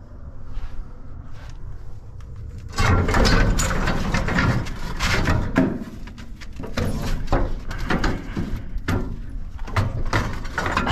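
Long-handled tools knocking, clanking and scraping against each other and a metal tool rack as they are shifted and pulled out. The clatter starts about three seconds in and goes on in an irregular run of knocks.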